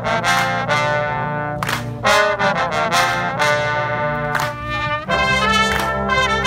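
A Dutch street brass band (dweilorkest) playing a lively tune, with trumpets and trombones over a low bass line. About five seconds in, the music switches abruptly to a different passage.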